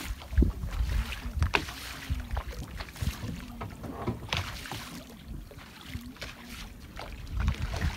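Wind rumbling on the microphone over choppy sea water sloshing against a small fishing boat, with a few sharp knocks.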